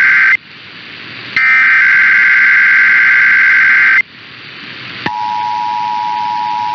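Emergency Alert System SAME header data bursts: two loud, harsh digital screeches with radio hiss between them. About five seconds in, the steady two-tone EAS attention signal begins, opening a required monthly test.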